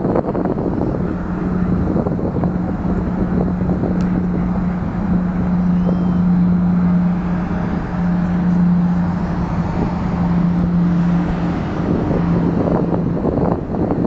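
Wind rumbling on the microphone over a steady engine hum.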